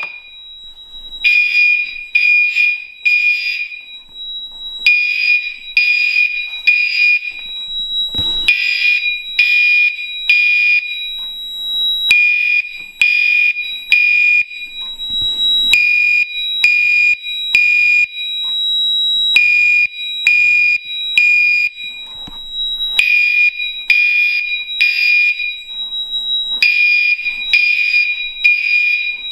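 Three Gentex Commander 4 fire alarm horns sounding the code-3 temporal pattern: three short blasts, a pause, then again, repeating. One horn is set to its mechanical horn tone and the other two to the 2400 Hz tone.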